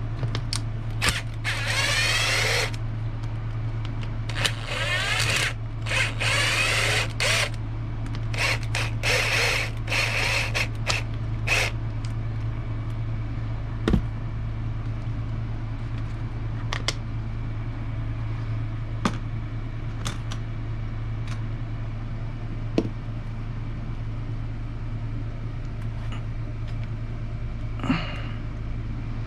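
Cordless power driver whirring in several short runs as screws are driven out of an RC truck's chassis, its pitch gliding up and down during each run. After that come scattered sharp clicks of small parts and tools being handled, over a steady low hum.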